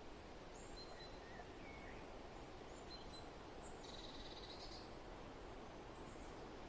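Soft, steady wind noise, with faint bird chirps over it and a short buzzy bird trill about four seconds in.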